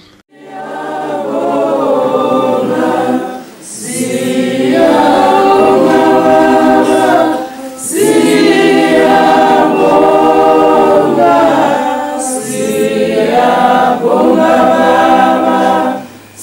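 A group of voices singing together unaccompanied in harmony. The song runs in phrases of about four seconds, each separated by a short breath.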